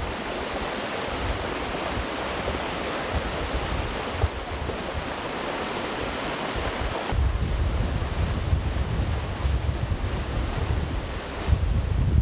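Fast-flowing floodwater rushing in a stream swollen far above its normal level after heavy rain, a loud steady rush of water. Low gusts of wind buffet the microphone, heavier from about halfway through.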